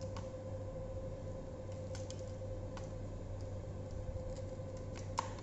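Light clicks and rubs of cables and a spiral cable wrap being handled on an electric scooter's stem, with a sharper click about five seconds in, over a steady background hum.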